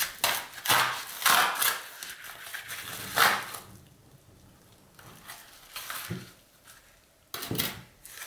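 Yellow paper mailer envelope being torn open by hand: ripping and crackling paper for the first few seconds, then quieter rustling and a few light knocks on the wooden desk near the end.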